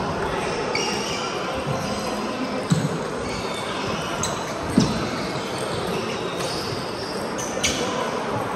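Table tennis balls clicking off bats and tables, a few scattered sharp hits over steady background noise.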